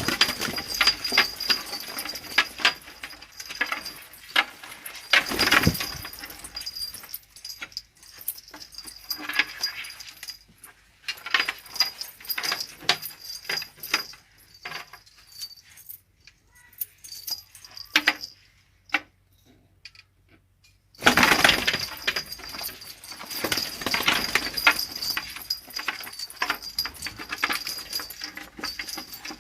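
Pigeons shuffling and flapping their wings, with many short clicks and rustles over a faint steady high tone. It drops almost to quiet for a few seconds about two-thirds of the way through, then the rustling and flapping pick up again.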